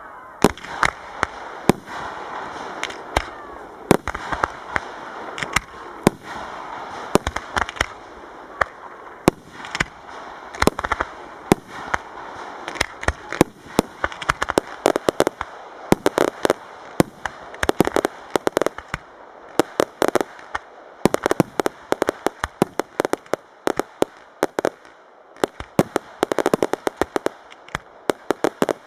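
Professional fireworks display: a continuous run of sharp bangs and crackling, getting denser in the second half into rapid volleys of reports.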